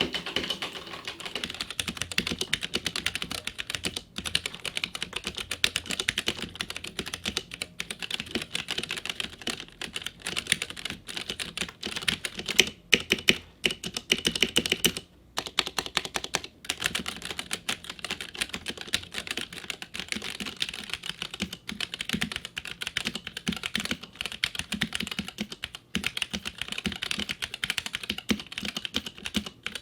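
Fast, steady typing on a Womier K66 65% mechanical keyboard with Gateron Brown tactile switches, a dense run of keystroke clacks with brief pauses now and then.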